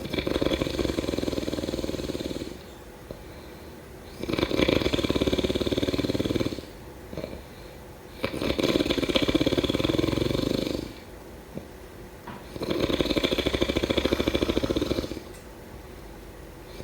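Snoring: four long snores about four seconds apart, each lasting over two seconds as a fast, fluttering rattle, with quieter stretches between them.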